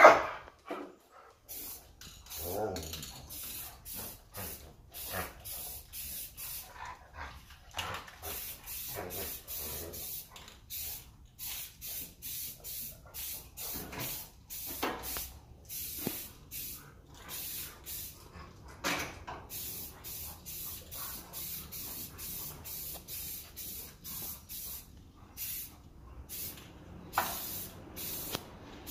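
Aerosol can of black spray paint hissing in many short bursts, a second or less each, with brief pauses between them. A single sharp, loud sound comes right at the start.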